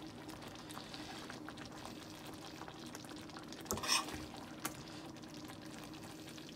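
Faint steady sizzle of liver, bacon and onion gravy in a frying pan, with a short clatter of a utensil against the pan about four seconds in and a light click just after.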